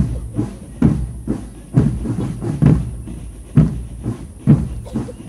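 Marching drum band's drums beating a slow, steady rhythm: a strong hit about every second with lighter strokes between.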